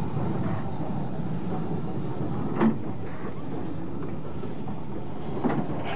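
Steam tank engine and its coaches running along a station platform, a steady low rush of train noise with two sharp clanks, one a little before halfway and one near the end.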